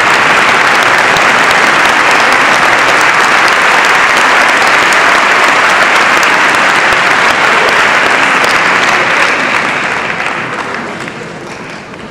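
Audience applauding in a concert hall: steady, dense clapping that dies away over the last three seconds or so.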